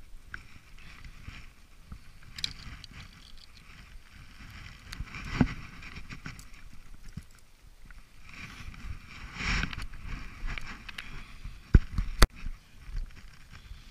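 Handling and rustling noise close to a body-worn camera's microphone, swelling in a few uneven bursts, with two sharp knocks about half a second apart near the end.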